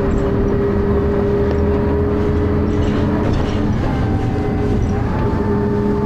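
Dennis Arrow bus running under way, its diesel engine thrashing, with a steady high-pitched whine over the engine noise. A fainter, higher whine rises slightly about five seconds in.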